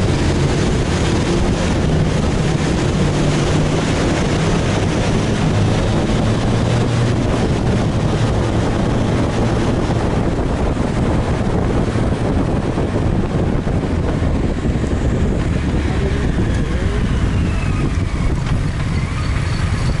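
Wind rushing over the microphone of a camera on a moving motorcycle, with the motorcycle engine running steadily and low underneath. The rush is brighter at first while riding through a tunnel and grows duller from about ten seconds in, once the bike is out in the open.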